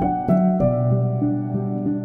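Calm instrumental background music: a slow melody of struck notes ringing over held lower tones.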